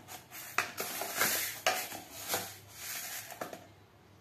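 Kitchen utensils clattering and scraping in several irregular strokes, stopping about three and a half seconds in.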